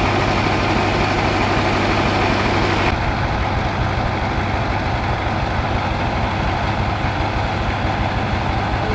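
Tractor diesel engine running steadily with a deep, even hum; about three seconds in the higher-pitched part of the sound drops away abruptly while the low engine note carries on.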